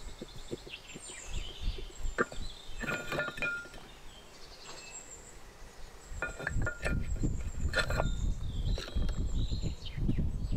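A few light clinks as small clay spice bowls are picked up and set down, some ringing briefly. Birds chirp in the background, and a low rumble rises about six seconds in.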